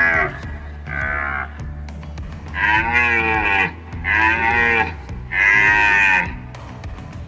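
A large bovid, such as an African buffalo or a wildebeest, calling in repeated moo-like lows, five in a row, each about a second long.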